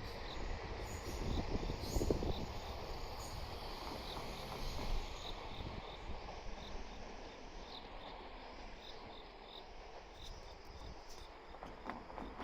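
Crickets chirping, a regular run of short, evenly spaced high chirps, over a low rumble that fades away across the first half.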